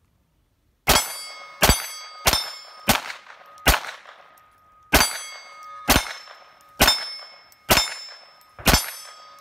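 Ten rapid shots of CCI Mini-Mag .22 LR from a Smith & Wesson SW22 Victory pistol, starting about a second in at a little over one a second, each followed by the ringing clang of a steel plate target being hit. The pistol feeds and fires every round without a malfunction.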